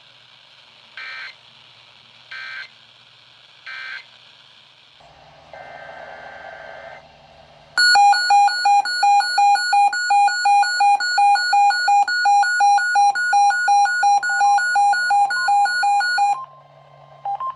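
Three short two-tone digital data bursts from a radio broadcast, the EAS end-of-message code that closes the test. A few seconds later a weather radio receiver sounds its alert: loud, rapid electronic beeping, about three to four beeps a second, for roughly eight seconds before it stops.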